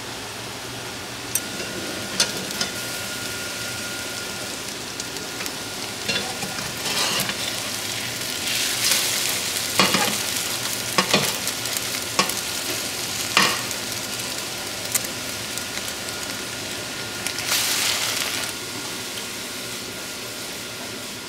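Beaten eggs sizzling as they fry into an omelette in a hot nonstick skillet, with a metal spatula clicking and scraping against the pan every second or two.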